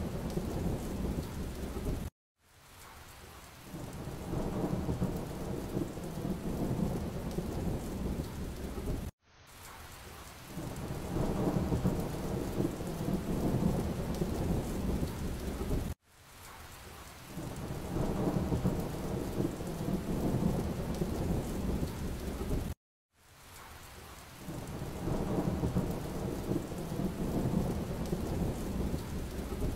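Rain with low rumbling thunder, a steady noisy wash heaviest in the low end. It cuts out abruptly about every seven seconds and fades back in each time.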